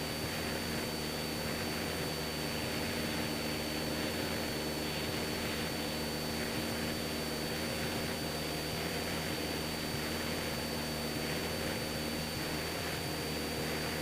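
Cessna 172SP's four-cylinder Lycoming engine and propeller droning steadily in flight, heard from inside the cabin, with a thin steady high whine over it.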